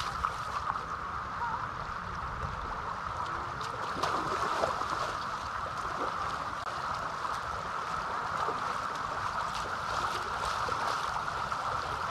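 Bare feet splashing step after step through shallow, fast-flowing floodwater, over a steady rush of the water running across the ground.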